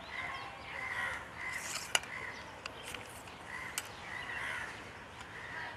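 Crows cawing over and over in short calls through the whole stretch. A few sharp clicks cut in, the loudest about two seconds in.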